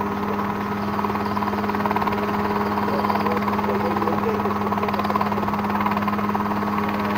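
Mosquito ultralight helicopter running, its engine and rotor making a constant, steady drone.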